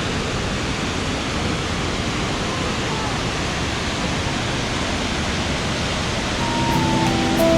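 Steady, even rush of Kegon Falls, a large waterfall plunging nearby. Guitar music fades in near the end.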